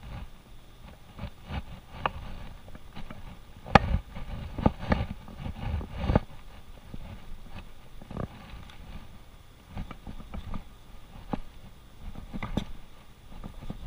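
Chef's knife trimming fat from New York strip steaks on a plastic cutting board, with steaks being moved and set down: irregular taps, knocks and scrapes, the sharpest about four seconds in.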